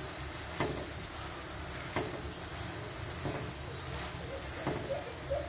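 Paratha frying in ghee on a hot tawa, a steady sizzle, with four light knocks from the metal knife being worked over the paratha on the pan.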